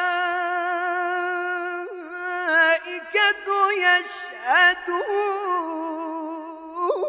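A young man's voice in melodic Quran recitation (tajweed), holding one long vowel steadily for about two seconds, then turning it through quick ornamented runs with short breaks, and settling into another long held note near the end.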